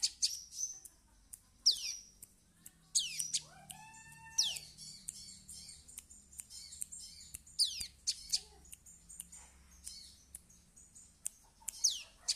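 Young prinia (perenjak) practising its song. It gives sharp, high whistles that sweep steeply downward and short ticking chirps at irregular intervals, with a lower held call about three seconds in.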